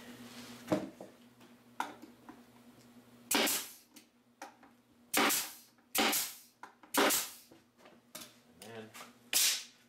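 Pneumatic nail gun firing five times into a pine block on plywood, each shot a sharp crack with a brief hiss of exhaust air, the shots spaced about a second apart. Two light wooden knocks come first as the block is set in place.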